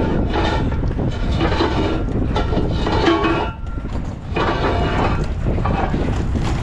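Rolling metal rumble with repeated metallic squeals and clatter, as scrap metal is moved across the scrapyard.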